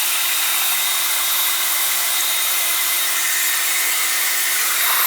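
Kärcher K2 electric pressure washer running and spraying through a foam cannon: a steady motor hum under a hiss of spray.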